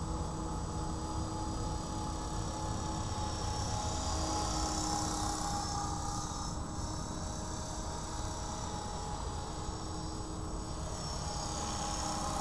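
Align T-REX 500 electric RC helicopter in flight: a steady buzzing whine from its motor and rotor blades. The whine swells about four seconds in, fades, and swells again near the end as the helicopter manoeuvres. A low rumble runs underneath.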